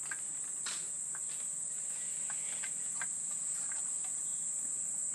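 Insects droning steadily at one high pitch, with a few faint short clicks and sounds over it.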